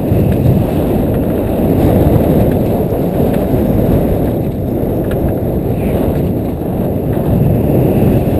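Wind buffeting the microphone of a camera on a small boat's bow, a loud steady rumble.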